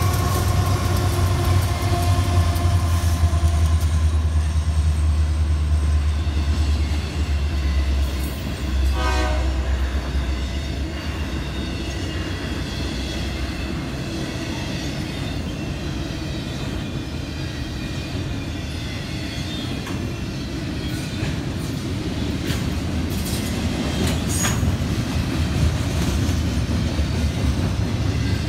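Diesel freight locomotives, among them a Union Pacific SD70M, passing with a heavy engine rumble that fades over the first eight or nine seconds, while the train horn trails off in the first few seconds. Then comes the steady rumble and clatter of double-stack intermodal cars rolling by, with scattered sharp wheel clicks.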